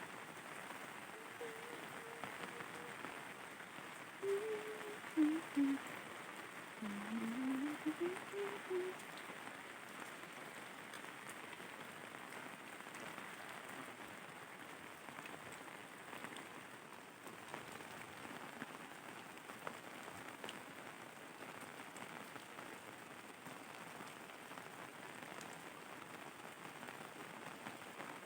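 Steady rain falling, an even continuous hiss. In the first nine seconds or so, a few short pitched sounds, voice-like and rising and falling, come over the rain.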